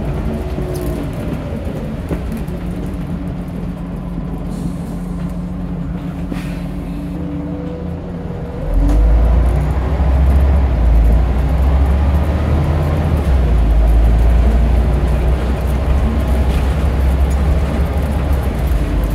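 Scania DC9 9.3-litre five-cylinder diesel of an Omnidekka double-decker bus running steadily at low load, then opening up about eight and a half seconds in: it becomes suddenly louder, with a heavy low rumble and a rising note, as the bus pulls away.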